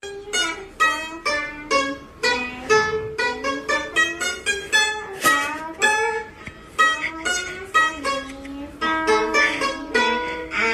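Music on a plucked string instrument: a melody of picked notes, each ringing and fading, a few to the second.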